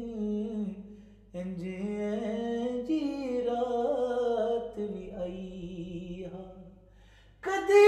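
One voice singing a Punjabi devotional poem unaccompanied, drawing out long, wavering melismatic notes. It breaks off briefly about a second in, fades away past the middle, and comes back louder on a new phrase near the end.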